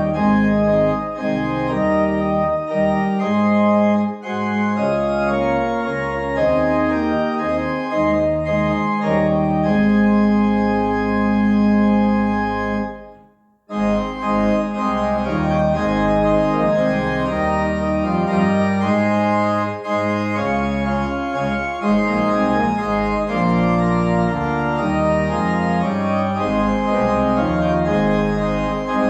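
Organ music: sustained chords that change every second or so. About thirteen seconds in the sound dies away, then the playing starts again.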